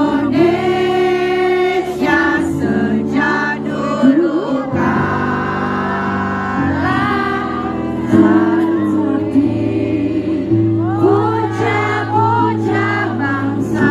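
Live pop music: a woman singing into a microphone over amplified band accompaniment with held low chords.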